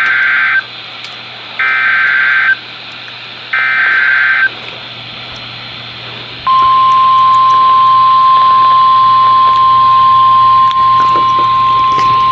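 Emergency Alert System SAME header from a NOAA Weather Radio broadcast: three short, harsh digital data bursts, the first ending about half a second in. About six seconds in, the steady single-pitch 1050 Hz warning alarm tone starts and holds, over radio hiss and hum. Together they mark the start of a new severe weather warning.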